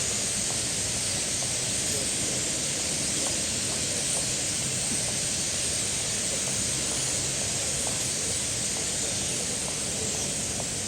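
Large flock of starlings chattering together in a dense, steady din.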